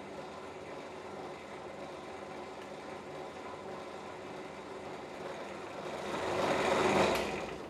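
A 250 W quarter-horsepower electric drill runs steadily under its own motor. It grows louder about six seconds in, then stops near the end.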